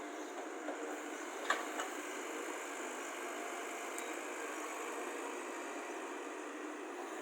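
Excavator engine running steadily, with a few short sharp clicks or knocks about a second and a half in and again about four seconds in.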